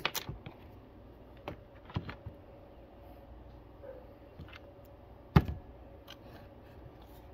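A few light clicks of hand tools and small parts, then a single sharp knock about five seconds in as a small Yuasa 6N4-2A-5 motorcycle battery is set down on a wooden tabletop.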